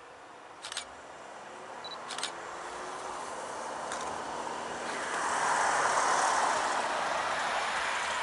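Rushing vehicle noise that builds to a peak about six seconds in and then eases slightly, with a few sharp clicks in the first half.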